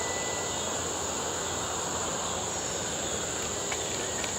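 Crickets chirring steadily as a constant high-pitched drone, with a faint thin whine, likely the distant electric motor of an RC foam wing, slowly falling in pitch and fading out about two seconds in.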